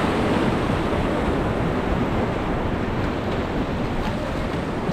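Steady rush of whitewater from the Beas River's rapids.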